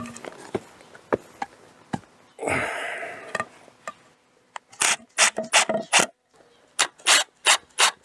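A temporary wooden brace being fastened to an upright timber post: a few light knocks and a brief scraping rub of wood on wood, then from about five seconds in a run of short, sharp bursts, about three a second, in two groups of four.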